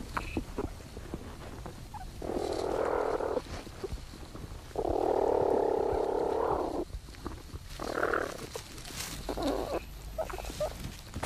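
Platypuses in a nesting burrow, close to the microphone, making rasping noises while the young suckle from their mother. There are four bursts; the second and longest lasts about two seconds. Scratchy clicks and rustles of nest material come between them.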